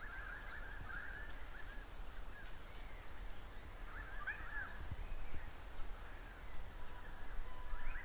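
Native birds calling: a busy run of chirping and warbling calls, loudest at the start and again about four seconds in, with a long even whistle near the end. Underneath runs a steady low rumble of wind on the Zoom H1N recorder's microphone.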